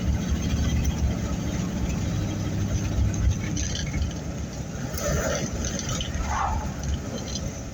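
A truck engine running, a steady low rumble.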